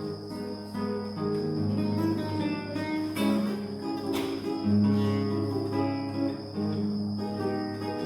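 Spanish guitar being played: plucked melody notes over held bass notes, with a sharp strummed chord about four seconds in. Insects chirr steadily behind it as a constant high tone.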